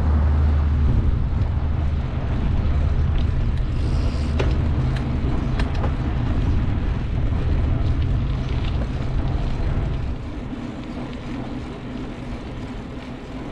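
A motor vehicle's engine running close by as a steady low hum with road noise, which fades about ten seconds in.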